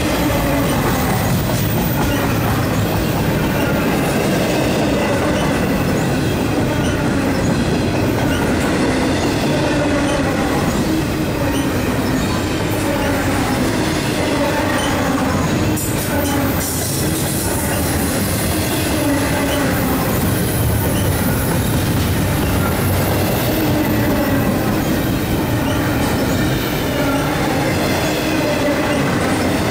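CSX double-stack intermodal freight train's well cars rolling past at speed: a loud, steady rumble and rattle of steel wheels on rail, with faint wavering wheel squeal.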